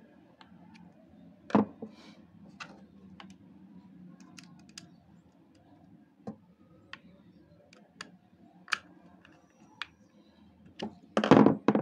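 Screwdriver clicking and scraping on the steel blade screws of a Wahl hair clipper as they are screwed back in, with scattered small metal clicks. A louder brief clatter of handling comes near the end.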